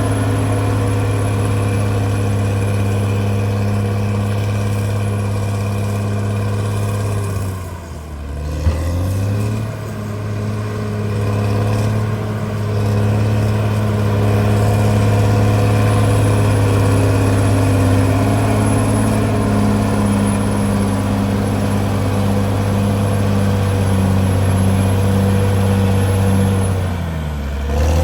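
Caterpillar D6R bulldozer's diesel engine running steadily at working revs. Its note drops and picks back up about eight seconds in and again near the end, with one sharp knock just after the first drop.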